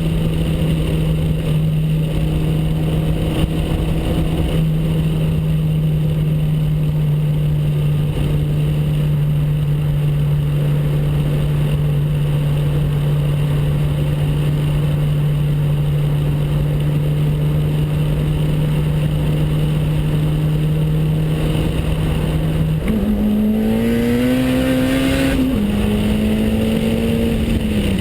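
Honda Civic four-cylinder VTEC engine and exhaust running at steady, fairly high revs with a constant drone. About 23 seconds in, the revs climb briefly and then drop back, falling off near the end.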